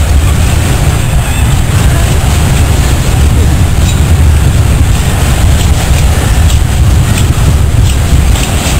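Loud, steady rumble with faint scattered rattling: a school gymnasium shaking in a strong earthquake.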